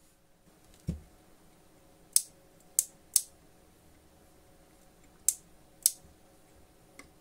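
A soft low thump about a second in, then five sharp clicks over the next few seconds as the metal control knobs on a small 2.1 amplifier are fitted and handled.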